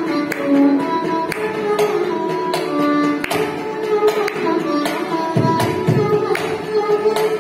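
Carnatic music: an ornamented melody of held and sliding notes over mridangam and ghatam strokes. Deep mridangam bass strokes come in about five and a half seconds in.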